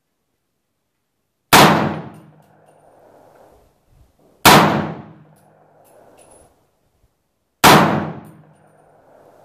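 Three single rifle shots from a 300 AAC Blackout AR-15, about three seconds apart, each a sharp crack that dies away into an echoing tail.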